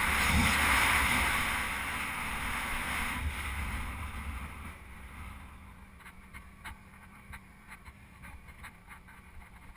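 Wind rushing over a helmet-mounted camera on a moving dual-sport motorcycle, with the bike's road noise underneath. The rush is loud at first and fades away about halfway through, leaving a quieter bed with faint scattered ticks.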